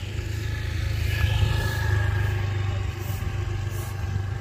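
Small motorcycle engine running as it rides up a dirt road, a low steady hum that swells about a second or two in and then eases slightly.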